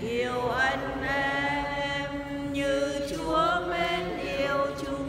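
Church congregation singing a slow hymn or chant, voices together on one melody in long held notes that slide from pitch to pitch.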